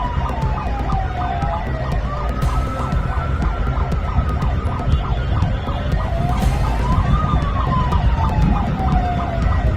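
Loud sirens fitted to private cars. A wailing siren rises over about a second and a half and falls slowly over about three seconds, then comes round again. A second siren tone and a fast pulsing pattern sit over a heavy low rumble.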